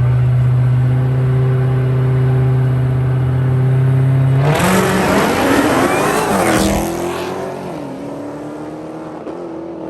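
Drag-race car engines held at steady high revs on the line, then launching about four and a half seconds in with a sudden loud burst of exhaust and tyre noise. The revs rise as they pull away, and the sound fades after about seven seconds.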